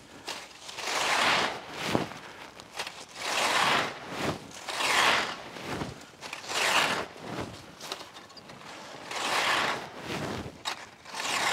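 A rake dragged through dry fallen leaves in about six rustling strokes, one every couple of seconds.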